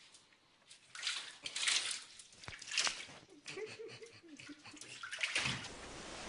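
Bathtub water splashing and sloshing in irregular bursts as two dachshund puppies paddle about. Near the end it gives way to a steady hiss.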